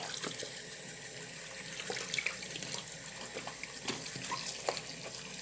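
Tap water starting suddenly and running steadily, splashing over a silicone pop-it fidget toy as it is rinsed, with a few small clicks and splashes.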